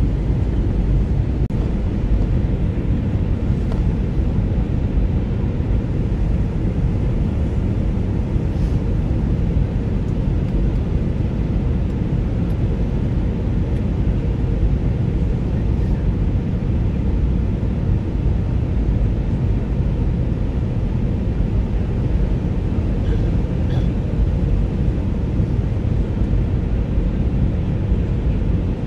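Airbus A319 cabin noise: a steady, even rumble of engines and airflow that does not rise or fall.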